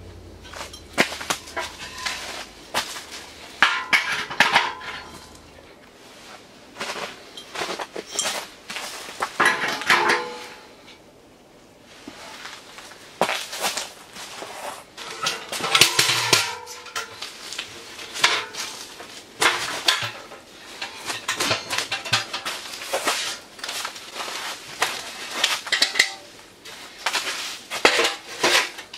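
Steel parts of a small sheet-metal wood stove clanking and rattling as its legs are fitted and the stovepipe sections are slotted together: irregular metallic knocks and scrapes, with a short lull partway through.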